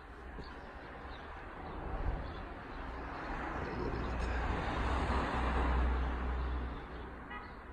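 A road vehicle passing on the street below: its noise swells over a few seconds to a peak about five to six seconds in, then fades, with a low rumble underneath.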